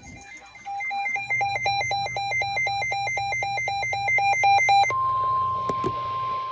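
A weather radio receiver's alert beeping rapidly, about five beeps a second. About five seconds in it gives way to the steady single-pitch NOAA Weather Radio warning alarm tone, which announces a new warning broadcast.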